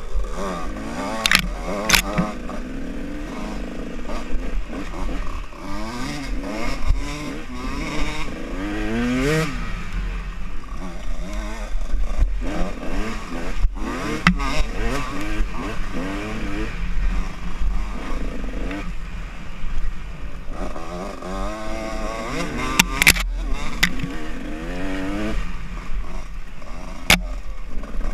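Dirt bike engine revving up and down over and over while riding a bumpy forest trail. Sharp knocks and clatter from the bike over the rough ground break in a few times, loudest about two seconds in and again near the end.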